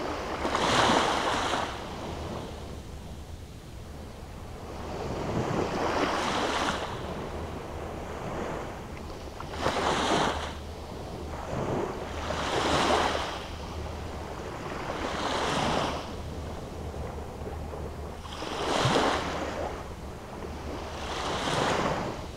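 Small sea waves breaking and washing up a sandy shore, a swell of surf about every three seconds, over a steady low rumble.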